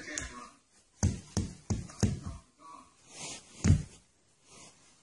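A series of soft thumps and knocks, about five in quick succession in the first half and one more a little later.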